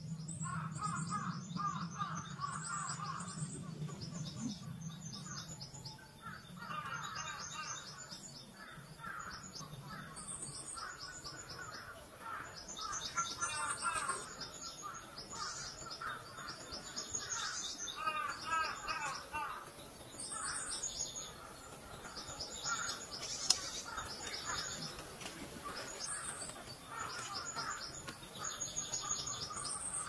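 Wild birds calling: repeated short bouts of rapid, high trilling chirps alternating with lower chirping calls.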